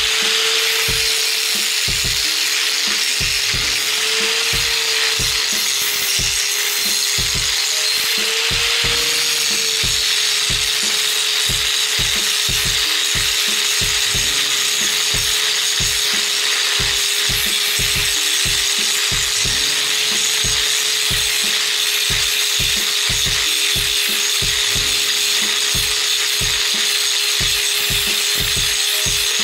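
Handheld angle grinder running under load, its abrasive disc grinding down a steel angle-iron rail. It is a constant motor whine over the harsh rasp of metal being ground. The pitch lifts briefly a few times in the first ten seconds as the pressure on the disc eases, then holds steady.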